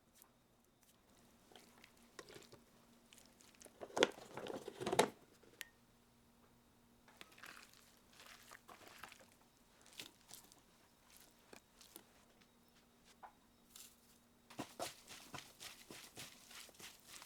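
Food-prep handling noises in a kitchen: short crunching, rustling and clicking sounds, loudest in a crackly burst about four seconds in and a quick run of ticks near the end, over a faint steady hum.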